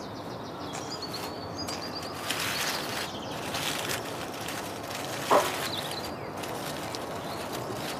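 Hands rustling and rummaging through dry dead leaves and twigs in leaf litter, over steady garden ambience with a few faint bird chirps and one brief louder sound about five seconds in.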